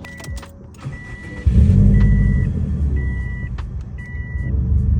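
A car's warning chime beeps about once a second. About one and a half seconds in, the 2003 Subaru WRX's turbocharged flat-four engine starts up suddenly and keeps running loudly under the chime.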